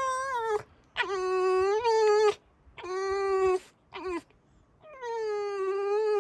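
Fox giving a run of drawn-out whining squeals, about five calls with short breaks between them, the last one long. This is its indignant morning 'squeaking'.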